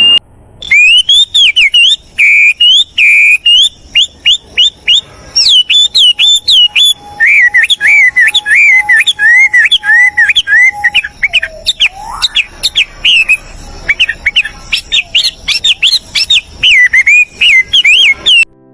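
Songbird chirping in quick repeated phrases of sharp, high notes. A lower steady whistle holds through the middle, then dips and swoops back up about twelve seconds in.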